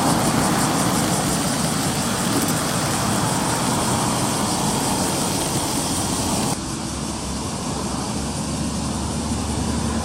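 A dense chorus of cicadas mixed with road traffic. About two-thirds of the way through, the sound changes abruptly to a thinner, slightly quieter mix with a low hum underneath.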